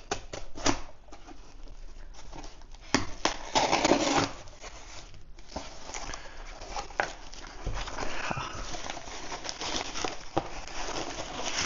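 A knife slitting packing tape on a cardboard box, then the box flaps being pulled open: scraping, rustling and the tearing of tape, with scattered clicks and a louder stretch about three to four seconds in.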